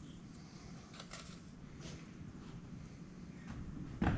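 Faint metal clinks from wrench work on a truck engine's head bolts over a low steady rumble, with one loud sharp knock just before the end.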